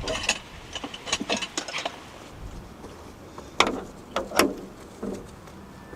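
Handling noises: a quick run of small clicks and knocks, then two louder knocks a little under a second apart near the middle, with a faint low hum beneath them.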